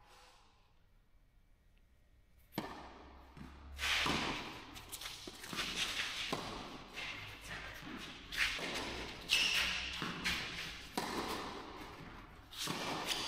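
Tennis rally on an indoor clay court in a large echoing hall: sharp racket-on-ball hits and ball bounces every second or two, each trailing off in reverberation. The first two and a half seconds are nearly quiet, before the serve.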